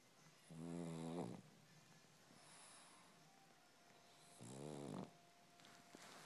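A dozing pug makes two short, purr-like snoring rumbles through its short snout, the first about half a second in and the second about four seconds later, each under a second long.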